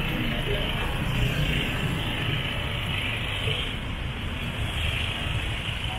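Passing road traffic: a box truck, an SUV and motorcycles driving by close at hand, their engines and tyres making a steady low noise.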